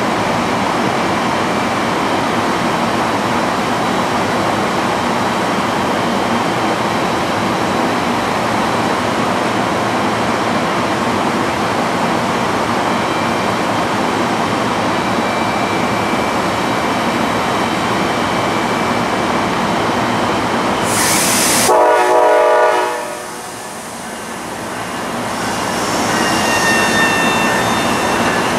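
MARC bilevel commuter train standing at the platform with a loud, steady running noise. About 21 seconds in there is a short sharp hiss, then a horn blast, and the noise builds again as the train starts to pull out, with faint high squealing tones near the end.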